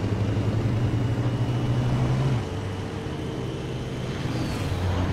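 Vehicle engines running at speed in a chase, a deep steady drone that drops in level about two and a half seconds in, with a faint high whine above it.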